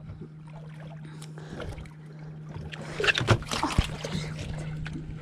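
Handling noise while a big fish is fought on rod and reel from a boat: knocks and rustling of the rod, reel and clothing against the camera, loudest a little after three seconds in, over a steady low hum.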